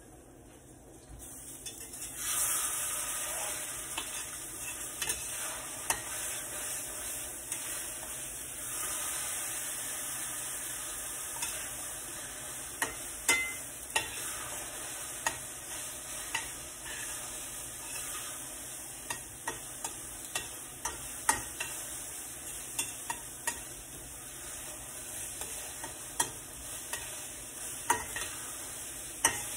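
Scrambled eggs with vegetables sizzling in a steel skillet. The sizzle grows louder about two seconds in. A spatula stirs and scrapes the eggs, with frequent sharp taps of metal against the pan.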